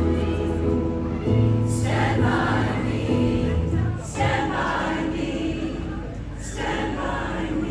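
Choir singing held chords, with no words made out, over a low held note that ends about four seconds in. Soft hissing swells come about every two and a half seconds.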